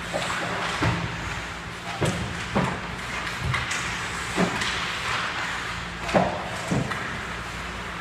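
Ice hockey play on the rink: skates scraping the ice over a steady low hum, with a run of sharp knocks from sticks and puck, about eight in all, irregularly spaced.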